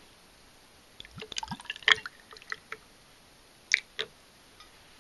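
Sweet-potato shochu poured from a bottle over large ice chunks in a glass tumbler: a second or two of glugging and clinking with short rising gurgles, then two sharp clicks a quarter-second apart.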